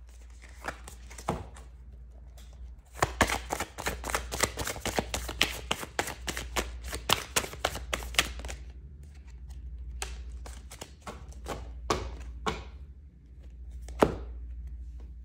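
A deck of tarot cards being shuffled by hand: a quick run of papery slaps at about five or six a second, then a few single taps as cards are set down, the sharpest near the end.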